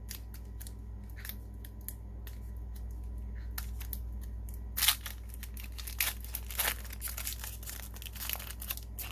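Trading cards and their pack being handled and sorted by hand: a run of small clicks, slides and rustles, the loudest click about five seconds in, over a steady low hum.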